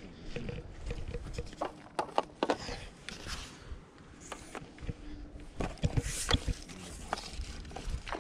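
Scattered clicks, knocks and rustles from handling a landing net and its long pole, with steps through dry grass and reeds.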